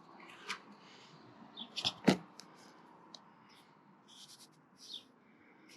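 Short rustles and scrapes of a vinyl decal's paper backing being handled, with one sharper, louder rustle about two seconds in.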